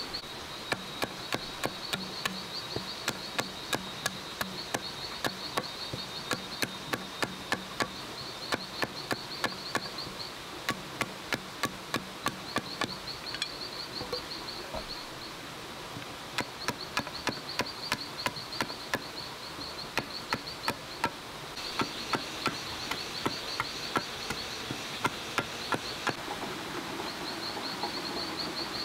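A blade chopping on a wooden log used as a chopping block: quick, regular strikes, about two to three a second, in runs of several seconds with a short pause around the middle. Insects chirp throughout in high, pulsing trills.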